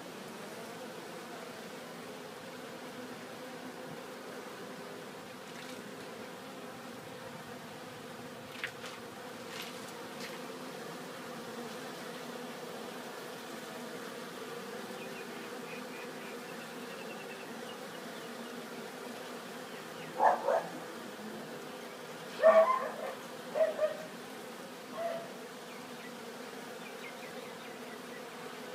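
Steady buzzing hum of a crowd of honeybees at a hive entrance. About two-thirds of the way through, a dog barks several times in short bursts, louder than the buzzing.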